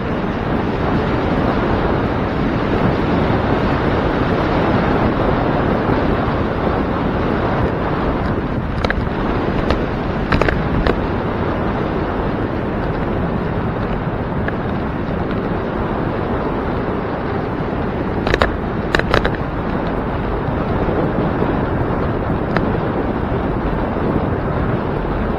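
Wind rushing over the microphone of a camera riding along on a bicycle, a loud steady rumble. A few short sharp clicks break through about ten seconds in and again in a quick cluster later on.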